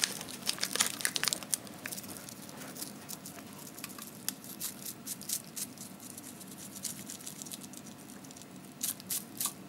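Seasoning sachet crinkling as its powder is shaken out onto cup noodles: many quick crackles at first, sparser in the middle, then a short cluster of louder crackles near the end.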